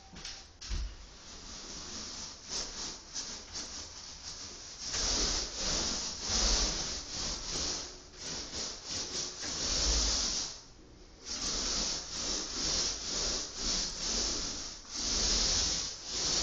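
Repeated rubbing strokes of a painting tool being worked back and forth over a surface, with a short pause about ten and a half seconds in.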